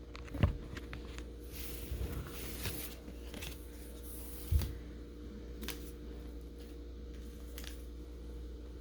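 Faint rustling and a few soft taps of Pokemon trading cards and their foil pack being handled, over a steady low electrical hum.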